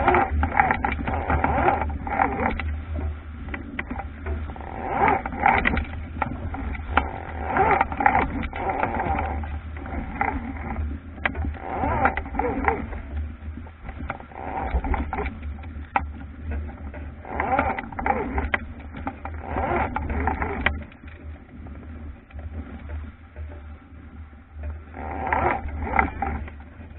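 Wind buffeting the microphone of a camera mounted on an Albacore sailing dinghy, with water rushing and splashing at the bow as the boat drives through waves. The bursts come and go unevenly and ease for a few seconds about two-thirds of the way through.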